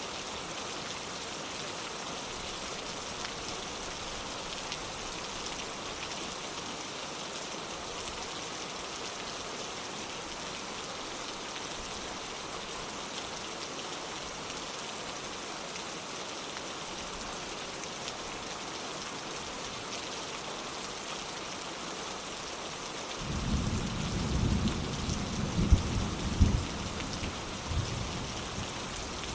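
Steady heavy rain falling, with a low rumble of thunder rolling in near the end and cracking loudest a couple of times before it fades.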